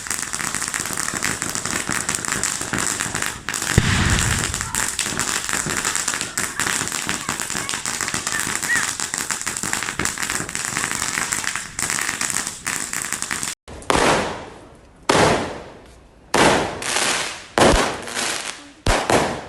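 Fireworks crackling densely, with a rapid stream of small pops, for about thirteen seconds. After a sudden break they give way to a series of separate bursts, about one a second, each fading away.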